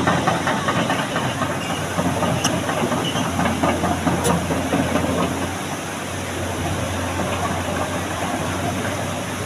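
Excavator diesel engine running steadily, a constant low hum under a broad rushing noise.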